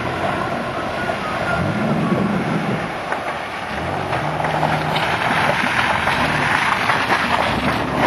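Off-road truck engine revving up and back down, then holding a steadier note, under heavy rushing noise with wind on the microphone. Crackling noise builds in the second half.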